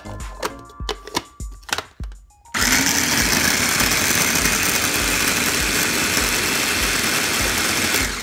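Small electric food chopper switched on about two and a half seconds in, its motor running loudly and steadily as it chops tomatoes to a purée, then stopping near the end. Background music with a steady beat plays throughout.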